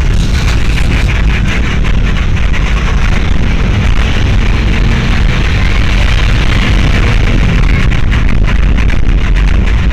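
Loud, steady rumble and rushing noise of a moving vehicle: engine drone under road and wind noise.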